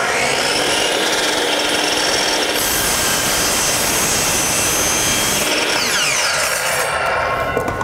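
Milwaukee miter saw running and cutting a 45-degree miter through primed pine molding. The motor then winds down with a falling whine near the end.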